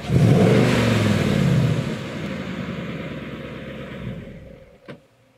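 Car engine revving hard for about two seconds, then easing off and fading away; a single click follows near the end.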